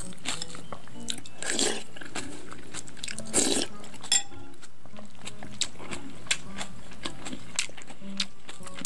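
Close-up eating sounds of rice soaked in cold barley water with kimchi: irregular crunching bites and chewing, the loudest bites about one and a half and three and a half seconds in.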